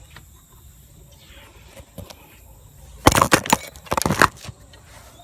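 Two short bursts of rustling and rattling, about three seconds in and again a second later.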